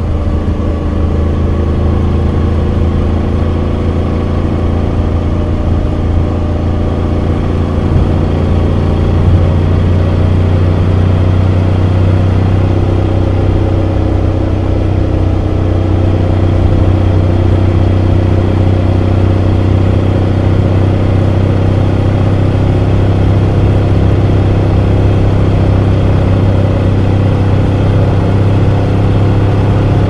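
Motorcycle engine heard from on board while riding, breathing through a stock muffler fitted with an Akrapovic header. It is a steady low drone at a fairly even pitch, with only slight changes in engine speed.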